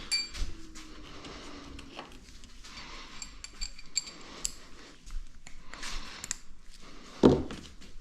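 Scattered light metallic clicks and clinks of hand tools being handled: a 12 mm socket and wrench being picked up and fitted, with one louder knock about seven seconds in.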